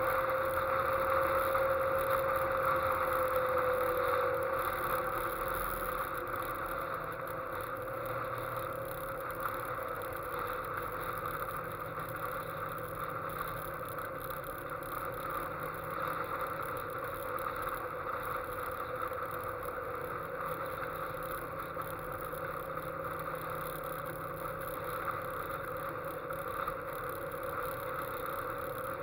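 Westfield sports car driving at a steady cruise, heard from its open cockpit: a steady engine note over wind and road noise. The engine tone eases off about five seconds in.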